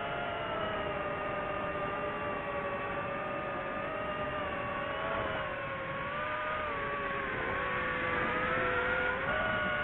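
Drone propeller motors whining in flight, several tones together whose pitch rises and falls with the throttle, dipping about two-thirds of the way in and rising again near the end.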